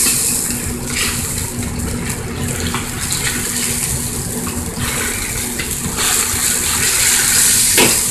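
Sauce boiling in a hot wok, a steady bubbling hiss, as cornstarch slurry is stirred in to thicken it, with a steady low hum underneath. A short clink near the end.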